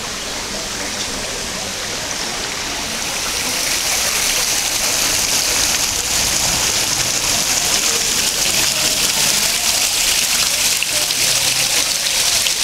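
Water from a tiered street fountain splashing steadily into its basin, getting louder about three seconds in.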